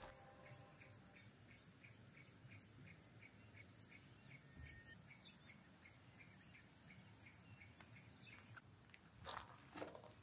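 Faint chorus of summer insects: a steady high-pitched buzz with a soft regular chirping about three times a second beneath it. The buzz thins about eight and a half seconds in, and a couple of soft knocks come near the end.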